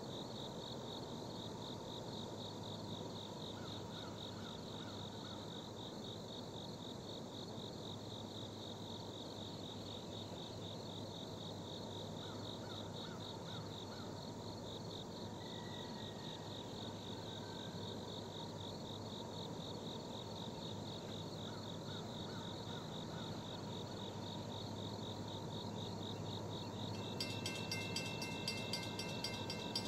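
A steady, rapidly pulsing insect chorus over the low, distant rumble of a freight train's diesel locomotives, an SD70AC and a CW60AC, working back up to track speed. Near the end the approaching train gets louder, with rapid clicking and ringing high tones.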